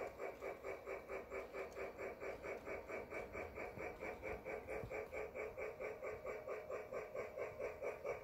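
Sound from a toy electric train layout: a steady, evenly repeating pitched pulse, about five beats a second.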